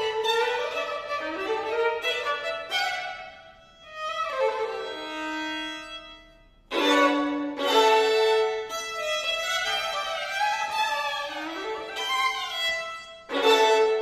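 Two violins playing a blues-inflected contemporary duo, with sliding, wailing pitches. The music dies away to a quiet held note a little before halfway, then both come in loudly and suddenly, with another sharp loud attack near the end.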